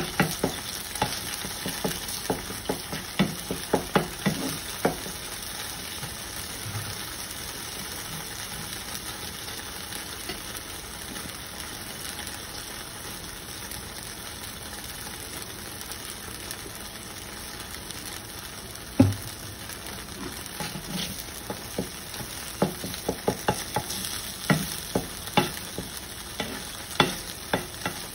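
Beaten eggs sizzling in a hot cast iron skillet, with a metal spatula scraping and tapping against the pan in quick bouts at the start and again through the last third. One sharper knock comes about two-thirds of the way in.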